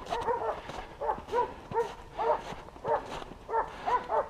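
Hunting dogs barking repeatedly, about two or three barks a second: baying a wild boar that has been shot and is holding up in cover.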